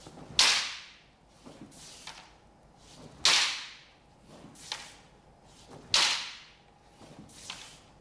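Bamboo kendo shinai striking against each other: one shinai knocks the other down and aside. There are three sharp, loud clacks about two and a half seconds apart, with fainter knocks between them.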